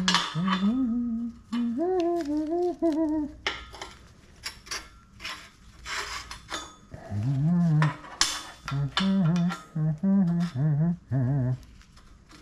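A man humming a tune in two long phrases, with scattered clinks and clanks of metal pieces being handled.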